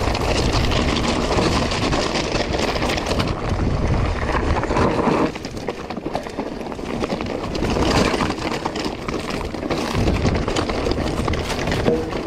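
Lapierre Zesty AM mountain bike riding fast down a loose, rocky trail: tyres crunching and clattering over stones and the bike rattling. The noise drops briefly about five seconds in.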